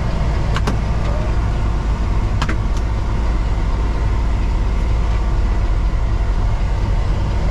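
Peterbilt 389 semi truck's diesel engine running, a steady low drone heard from inside the cab, with a few sharp ticks in the first few seconds.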